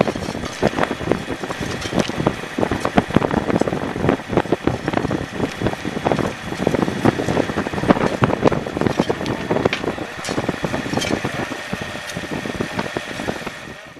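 Mini excavator's engine running, with spades scraping and clinking in stones and gravel in a dense run of short knocks and scrapes.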